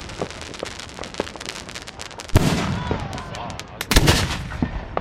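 Fireworks going off close by: scattered small cracks, then two heavy booms about two and a half and four seconds in, each trailing a rumble.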